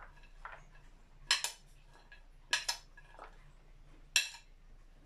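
A spoon clinking and scraping against a plate as shredded carrots are pushed off it into a mixing bowl: several sharp clinks, some in quick pairs, about once every second or so.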